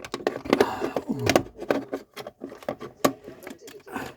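Irregular clicks, knocks and light rattles from handling a plastic wall socket faceplate and its screws and tools.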